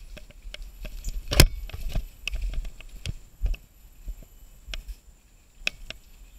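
Mountain bike rattling over a rough dirt trail: irregular clicks and knocks over a low rumble, the loudest a sharp knock about a second and a half in.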